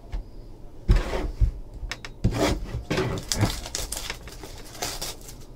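Hands handling a small cardboard trading-card hobby box: a couple of light knocks about one and two seconds in, then a run of scuffing in the second half.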